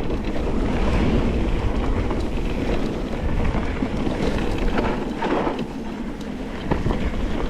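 Wind rushing over a GoPro microphone while it is on the move, with a steady low rumble and scattered small clicks and rattles.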